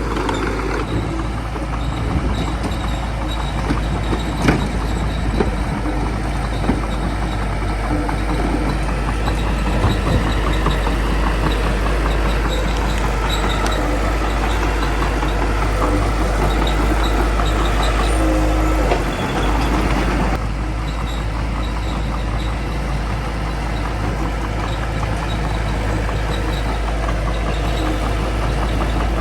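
Small bulldozer's diesel engine running steadily, with a few sharp metallic knocks in the first several seconds. The sound eases slightly about two-thirds of the way through.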